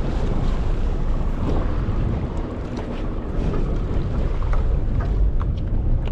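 Steady wind buffeting the microphone over the low rumble of a charter fishing boat at sea, with a few faint clicks.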